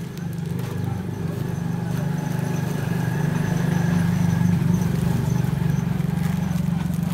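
A low, steady engine drone with a fast pulse, growing louder toward the middle and easing off near the end.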